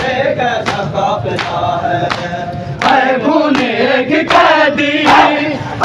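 A crowd of men chanting a noha in unison, kept in time by sharp chest-beating (matam) slaps, about one every 0.7 seconds.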